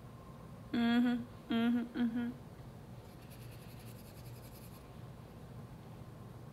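A woman humming three short notes about a second in, followed by faint, rapid rubbing of fingertips on skin.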